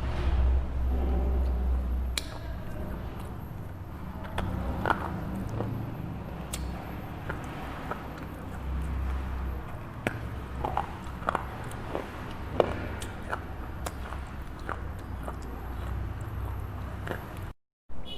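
Close-miked biting and chewing of a dry red slate bar, with many sharp, irregular crunches and cracks. The sound cuts out for a split second near the end.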